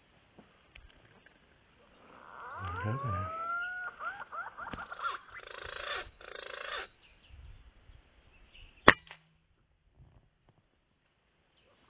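Green pigeon calling in a run of whistled notes that glide upward, from about two seconds in to about seven. About nine seconds in comes the single sharp crack of an air-rifle shot, the loudest sound.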